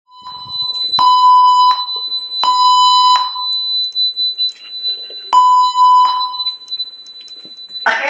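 Building emergency evacuation alarm sounding: loud horn blasts, each under a second long, three of them about a second and then two seconds apart, over a thin steady high-pitched tone.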